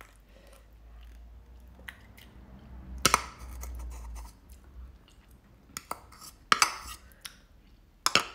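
Cutlery clinking against a dish as someone eats: several sharp clinks and knocks, the loudest about three seconds in and a cluster in the last two or three seconds.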